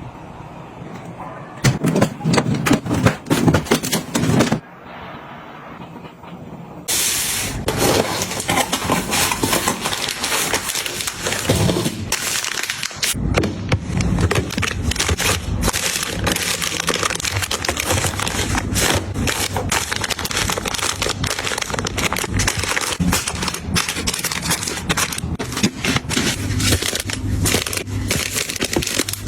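Dense crackling, clicking and scraping of objects and packaging being handled, with loud bursts of clicks about two to four seconds in, a short quieter spell, then steady crackling from about seven seconds on.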